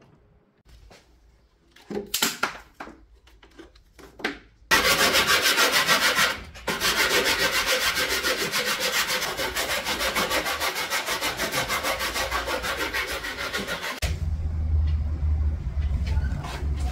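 Sanding block worked quickly back and forth along the edge of an MDF panel, a loud, evenly pulsing scratchy rub. It starts about five seconds in after a few light knocks and scrapes, pauses briefly, and stops about fourteen seconds in. A low rumble takes over for the last few seconds.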